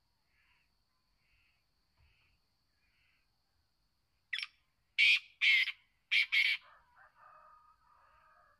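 Black francolin calling: a short note, then four loud, harsh, grating notes in quick succession about halfway through, trailing into quieter, lower sounds. Before it, faint short notes come about once a second over a faint steady high tone.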